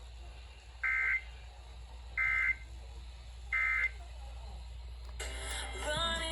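Emergency Alert System end-of-message signal: three short, identical bursts of SAME digital data tones, each about a third of a second and about a second and a half apart, marking the end of the severe thunderstorm warning broadcast. Near the end comes a second of static-like noise with wavering tones.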